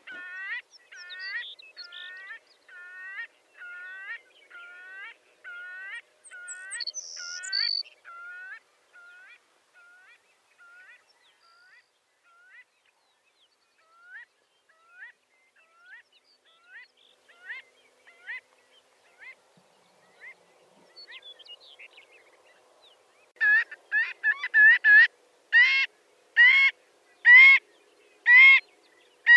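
Marbled godwit calling: a long run of repeated, hooked call notes, about two a second, that gradually fade away. A few scattered calls follow, then near the end a louder, quicker series of calls.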